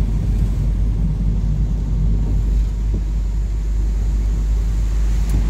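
Car driving on a wet road, heard from inside the cabin as a steady low rumble of engine and road noise.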